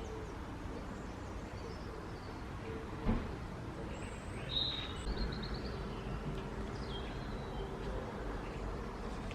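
Outdoor garden ambience: small birds chirping now and then over steady low background noise, with one sharp knock about three seconds in.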